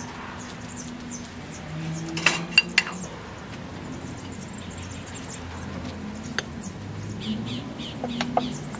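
Terracotta flower pots clinking and knocking as they are handled and set down, a few sharp clinks clustered about two seconds in and a few more near the end.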